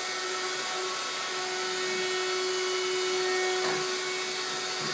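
Vacuum cleaner running steadily: a constant motor hum with a held tone over a steady rush of air.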